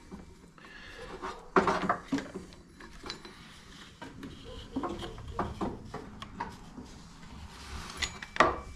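Hands fitting a rubber serpentine belt around engine accessory pulleys: scattered light knocks, clinks and rubbing as the belt and hands touch the pulleys and brackets, with the loudest clatter about a second and a half in and again near the end.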